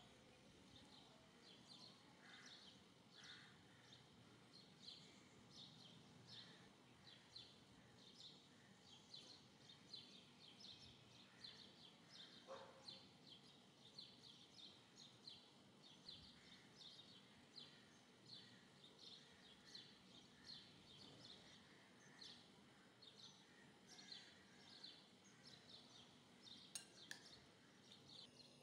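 Near silence, with faint high-pitched chirps repeating about twice a second and a single sharp click near the end.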